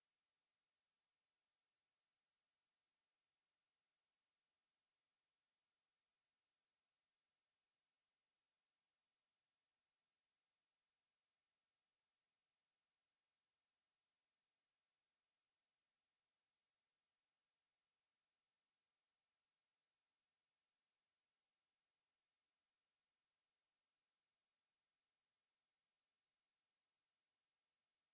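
A steady, high-pitched 5918 Hz pure sine-wave test tone, held at a constant level.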